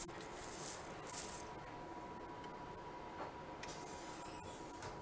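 Hands handling a microscope stage to take a sample slide off. There is a click, then two brief rustles within the first second and a half, then a few faint clicks, all over a faint steady tone.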